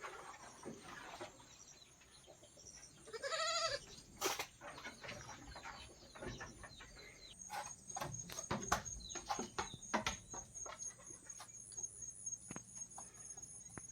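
A goat bleats once, a single wavering call about three seconds in. Scattered clicks and knocks follow, and a steady, high, pulsing insect trill comes in about halfway through.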